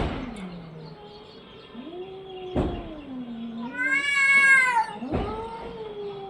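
A domestic cat yowling: two long, low, drawn-out meows with a louder, higher-pitched meow between them about four seconds in. A few short sharp clicks are also heard.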